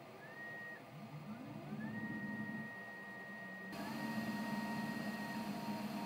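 Small CNC lathe's axis drive motors whining through rapid moves. There are several rising whines that level off into a steady high tone, over a lower hum, and the sound gets fuller from about four seconds in as the turret swaps the threading tool for the drill.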